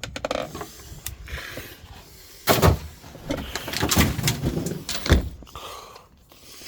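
Two sharp knocks, about two and a half and five seconds in, with rustling and scraping handling noise between them.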